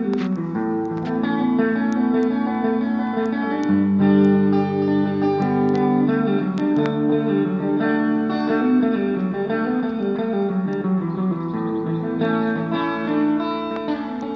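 Guitar jam: long held, ringing guitar notes over a bass line that shifts a few times.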